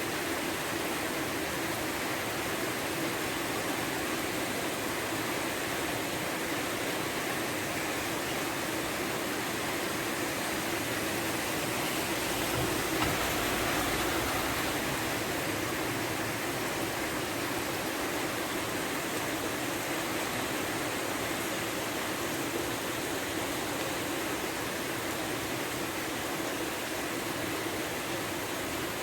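Heavy rain pouring down in a steady, even rush, swelling slightly about halfway through.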